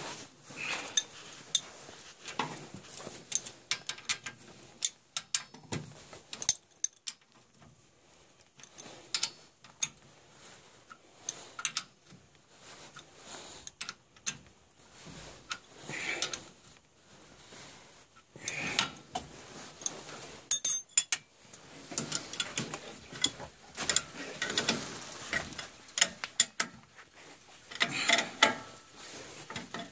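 Metal tools and bolts clinking and knocking against metal pipe fittings as a circulator pump's flange bolts are started and fitted: irregular sharp metallic clicks spread through, with no steady machine sound.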